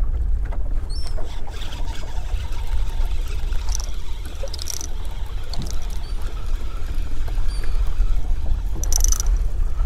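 Steady low rumble of wind and choppy water around a boat, with seabirds giving short, high calls now and then overhead, and a few brief hissing bursts.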